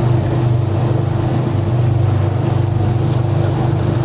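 Suzuki four-stroke outboard engine idling steadily at an even pitch, running for a live ignition test.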